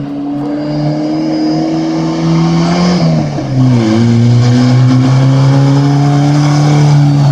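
Jeep with a loud aftermarket exhaust under acceleration: the engine note climbs steadily, drops about three seconds in, then climbs again.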